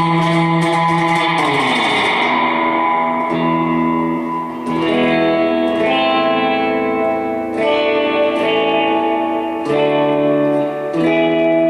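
Electric guitar played clean through a Bassman-style tube amp: a string of strummed chords, each struck sharply and left to ring for a second or more before the next.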